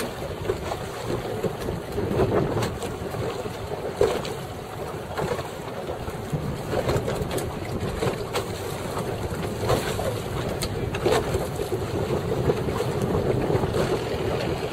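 Wind buffeting the microphone over choppy water, with waves lapping and slapping against a small boat's hull in sharp knocks now and then.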